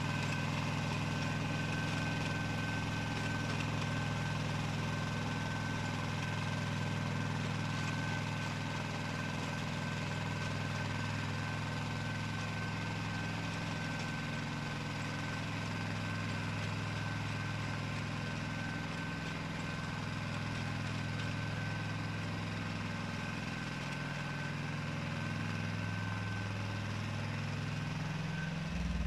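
Pasquali 425 compact tractor's engine running steadily under load while driving a Maschio rotary tiller through orchard soil, with a thin steady high whine above the engine hum.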